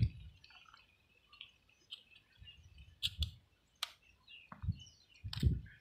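A few sharp clicks and soft knocks of a selfie stick tripod's phone holder being handled and clamped on, with faint bird chirps in the background.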